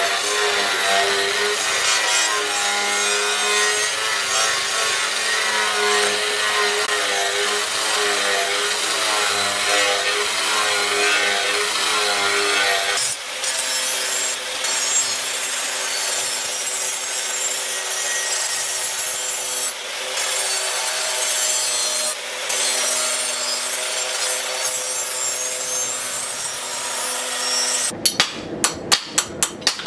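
Electric angle grinder running steadily with its disc pressed against a steel knife blade cut from a tractor disc plough, a harsh grinding hiss over the motor's whine. Near the end the grinding stops and a quick run of sharp knocks follows.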